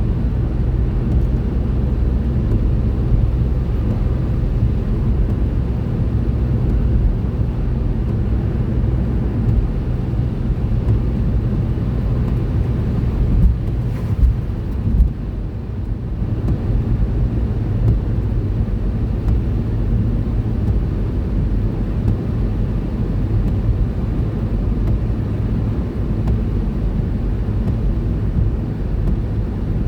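Steady road and engine noise of a car driving at about 50 mph on a snowy motorway, heard inside the car: a continuous low rumble, with a few short bumps about halfway through.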